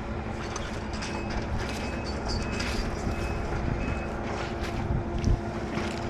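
An engine running steadily, a low even hum, with faint short high-pitched tones coming and going over it.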